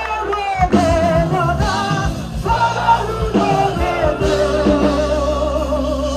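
Music with a sung vocal line over a steady bass and beat.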